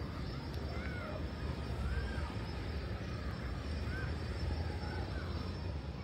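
Birds calling now and then, about five short calls that rise and fall in pitch, over a steady low rumble.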